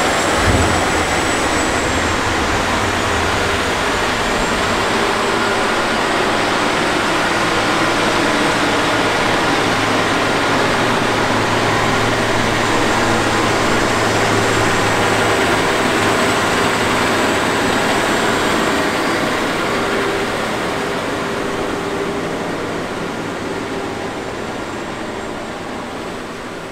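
John Deere 9510R tractor's 13.5-litre six-cylinder diesel engine running hard under load as the tractor pushes and packs corn silage with a dozer blade. The engine note is a steady, dense drone with a faint high whine, and it fades away over the last several seconds.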